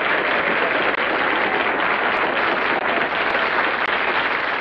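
Studio audience applauding at the end of a big-band number.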